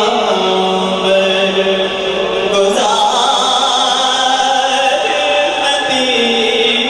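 A man singing a naat, an Urdu devotional poem in praise of the Prophet, solo into a microphone, drawing out long, slowly wavering held notes.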